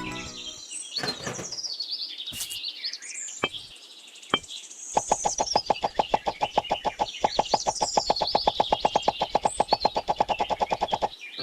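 Birds chirping, with a few sharp clicks, then from about five seconds in a fast, even run of clicks, about ten a second, lasting roughly six seconds.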